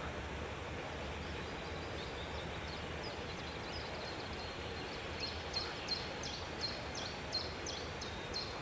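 Small birds chirping: short, high, falling chirps, sparse at first, then quicker and louder, about three a second, in the second half. Under them runs a steady background hiss and low hum.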